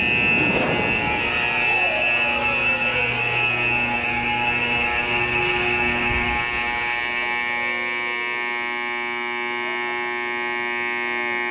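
Aircraft elevator warning buzzer aboard the carrier USS Hornet (CV-12) sounding without a break, a steady harsh electric buzz, which signals that the elevator is moving.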